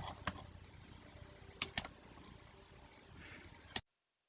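Quiet room tone with a few faint, sharp clicks: one just after the start, a quick pair about one and a half seconds in, and one more near the end, followed by a brief dead silence.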